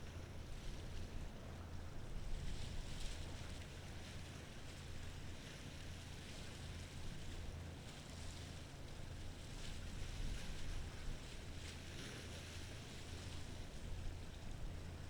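Low, steady drone of a passing ferry's engines, with irregular washes of wind and waves over it.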